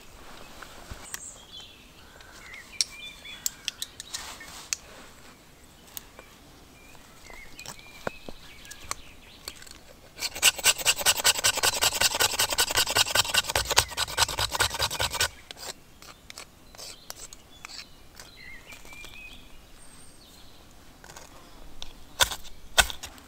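Wood being sawn by hand: a run of fast, even rasping strokes lasting about five seconds, starting about ten seconds in. Scattered small knocks come before and after it.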